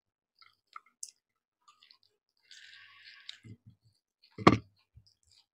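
Eating sounds from chicken and rice being eaten by hand: small wet mouth and finger clicks, a short rustle about two and a half seconds in, then a single sharp knock, the loudest sound, about a second before the end.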